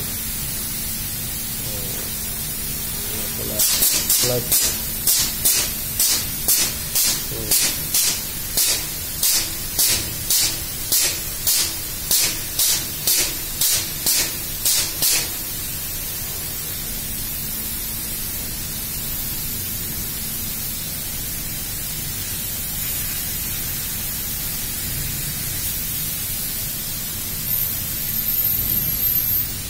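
Short, sharp hisses of compressed air, about two a second for some twelve seconds, then stopping: a pneumatic gear-type air cylinder cycling, venting air on each stroke. A steady machine drone sounds throughout.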